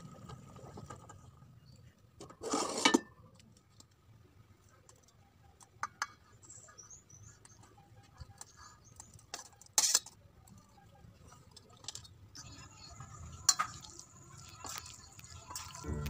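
A metal spoon clanking and scraping against a stainless steel saucepan and mixing bowl while cooked vermicelli is spooned out and tipped in. A few separate loud clatters, the loudest about 2.5 s in and near 10 s, with a shorter clink near 13.5 s and quiet between.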